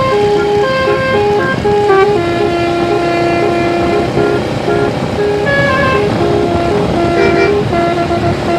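Indonesian bus 'telolet' Basuri musical air horn, a 12-note set with roof-mounted trumpets, playing a melody. Its notes change pitch in quick steps, with a few held longer, over the low rumble of a vehicle engine.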